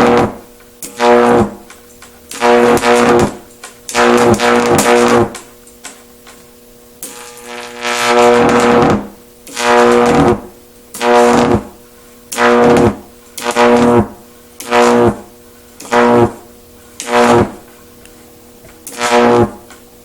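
High-voltage arcs drawn again and again from a resonant stack of two microwave oven transformers: a loud, buzzing hum in about a dozen separate bursts, each from under a second to about two seconds long, with short quiet gaps between.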